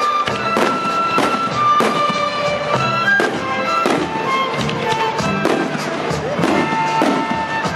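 Aerial firework shells bursting one after another, sharp bangs and crackles every second or so, over music with a melody of long held notes.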